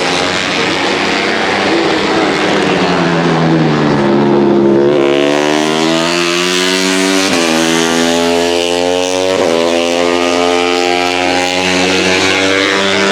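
KTM RC250RBR race bikes' single-cylinder four-stroke engines running hard at high revs. The pitch falls over the first few seconds, then climbs, with sharp breaks in pitch twice near the middle.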